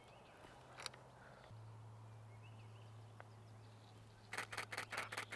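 Nikon Z6 II camera shutter firing in a rapid burst, about five frames a second, starting about four seconds in. A steady low hum runs underneath from about a second and a half in.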